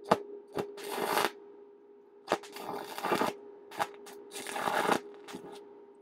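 Stick welding aluminium plate with aluminium electrodes: the arc crackles in three short bursts, each under a second, with sharp snaps in between as the rod is struck again, over a steady hum. The stop-start pattern is that of an arc that keeps going out and being re-struck.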